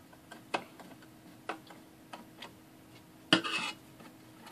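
Screwdriver working the screws of a sheet-metal equipment bottom cover: a few sharp metal ticks about a second apart, then a louder scrape of metal on metal a little over three seconds in.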